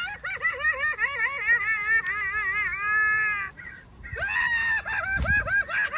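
Halloween animatronic scarecrow head playing its sound effect through a small speaker: a high, wavering, shrieking cackle in rapid rising-and-falling swoops. It breaks off briefly about halfway through and then starts again.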